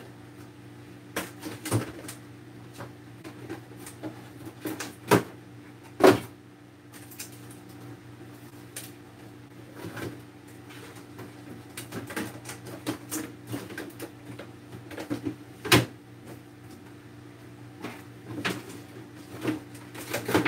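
Groceries being put away: scattered knocks, clunks and clicks of containers being set down and cupboard or refrigerator doors handled, a few sharper knocks standing out, over a steady low hum.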